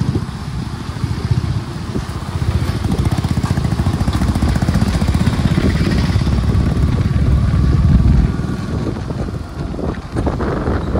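A two-wheeler's engine running as it rides along a wet road, with wind buffeting the microphone. The engine builds for several seconds, then eases off suddenly about eight seconds in.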